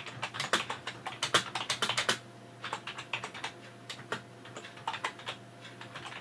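Typing on a computer keyboard: a quick, irregular run of key clicks, a brief pause about two seconds in, then slower, sparser keystrokes.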